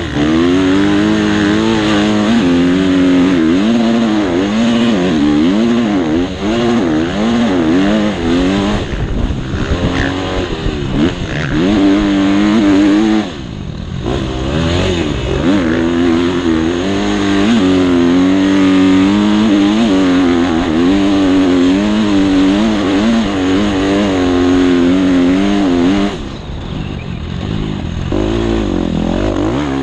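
Motocross bike engine heard from on board, revving up and down continuously as the rider works the throttle and gears around the track. The throttle shuts off briefly about halfway through and again near the end.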